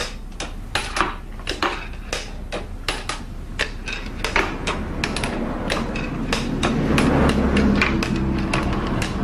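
Irregular sharp clicks and knocks, two or three a second, from a working model of a Roman cheiroballista (hand catapult) being operated. A low steady hum comes in about halfway and grows louder.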